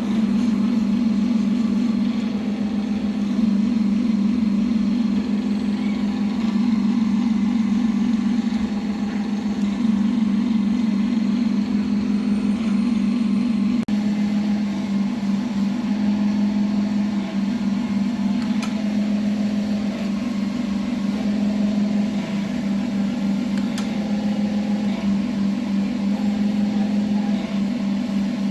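Machine tool running steadily while machining a casting held in a hydraulic clamping fixture: a loud, even mechanical hum with a strong low drone and a few faint clicks.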